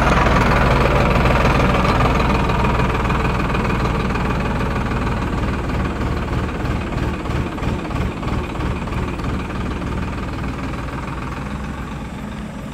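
Farm tractor's diesel engine running, loud close by at first and fading steadily as the tractor drives away down the track.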